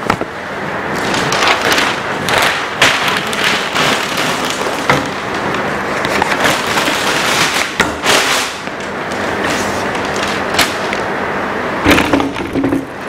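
Large sheets of flipchart paper rustling and crackling as pages are handled and flipped over the top of the easel pad, with many sharp crackles throughout.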